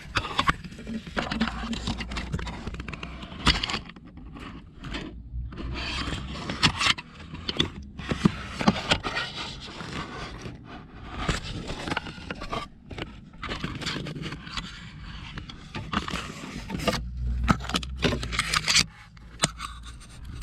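Blower motor being twisted and worked out of its housing under the dashboard, with irregular scraping and rubbing and scattered sharp knocks.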